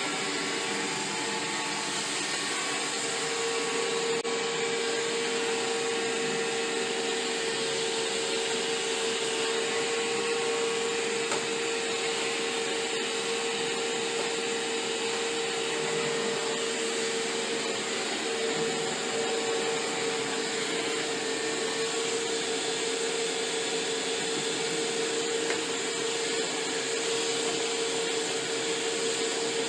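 iRobot Roomba i7+ robot vacuum running steadily, its motor making a constant whir with a steady whine.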